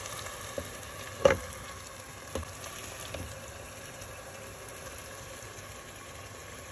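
Chicken curry cooking in a covered steel pan over a gas burner, with a steady hiss. A glass lid clinks sharply onto the pan rim about a second in, with a few lighter knocks around it.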